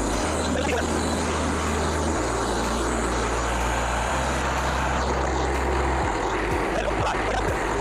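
Frontier OS27 portable sawmill running steadily with its gas engine at work. Underneath it, low steady notes change pitch about every two seconds.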